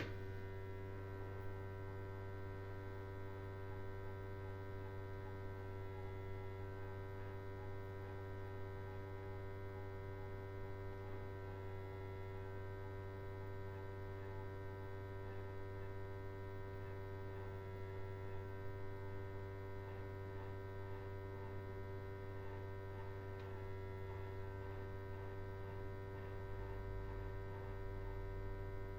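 Steady electrical hum, with several faint steady tones above it, unchanging throughout.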